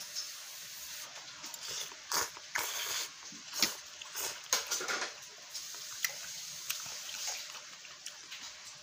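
A person slurping and chewing noodles in broth: wet sucking and smacking mouth sounds, busiest from about two to five seconds in.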